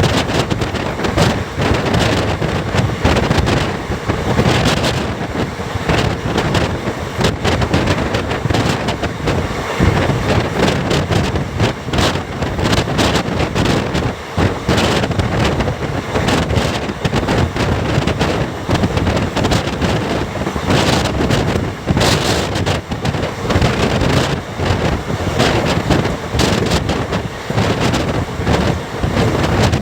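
Running noise of an express train in motion, heard from on board: a steady loud rush with wind buffeting the microphone, broken by frequent irregular clicks and knocks.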